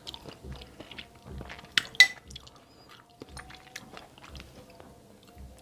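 A metal spoon scraping and clinking against a glass bowl while food is scooped, with two sharp clinks just under two seconds in. Soft, regular chewing underneath.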